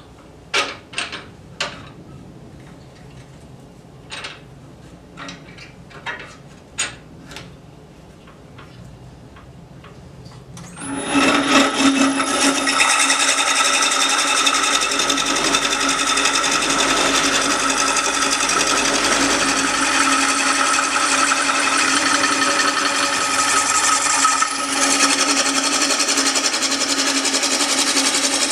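A run of sharp knocks and clicks, then about eleven seconds in a Delta 16/42 wood lathe starts up and runs steadily with a high whine.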